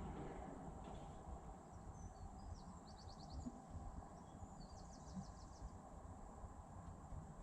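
Birds chirping outdoors: two short rapid trills about three and five seconds in, with a few single chirps, over a faint low rumble of background noise.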